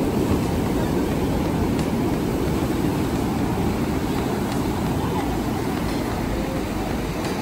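Surf breaking over reef rocks and sand, heard as a steady low rushing rumble.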